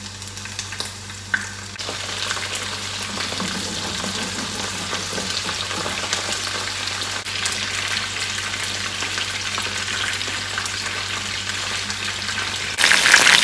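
Batter-coated chicken pieces sizzling as they shallow-fry in hot oil in a frying pan. The sizzle grows louder about two seconds in as more pieces go in, and jumps louder again near the end.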